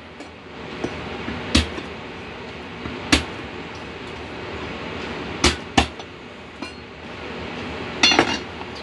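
Sharp knocks of a kitchen knife and hand on a wooden cutting board as garlic cloves are smashed under the flat of the blade, a handful spaced a second or two apart, then a quick run of chopping taps near the end.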